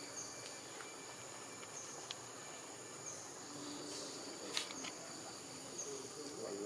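Steady, high-pitched insect chorus with a short falling chirp about every second and a half, and a few sharp clicks, the loudest about halfway through.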